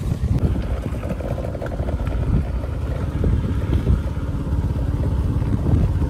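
Motorbike running at road speed, with wind buffeting the microphone as a steady low rumble.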